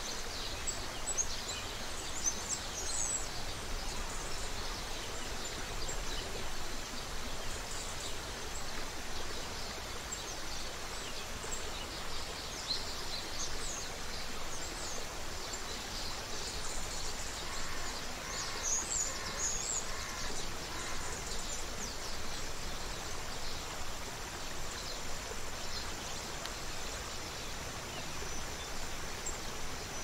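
Creek water running steadily, with small birds chirping in short high notes throughout, busiest around the middle.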